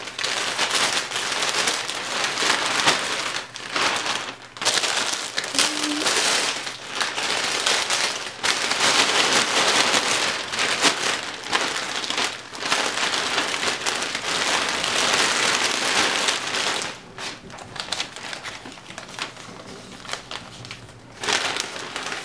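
Plastic crinkling and rustling as clothes in clear plastic bags are pushed into a large black poly mailer. The rustling goes on most of the time and is quieter for a few seconds near the end.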